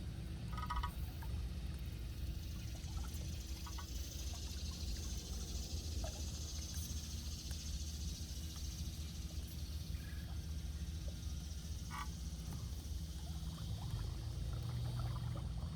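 Steady low rumble and hum of a small boat under way on an electric motor, over a high steady hiss, with a few short frog calls about a second in and again about twelve seconds in.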